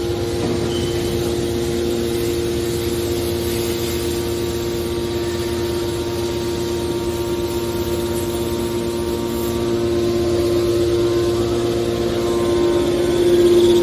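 Hydraulic metal baler running with a steady mechanical hum. It grows a little louder near the end.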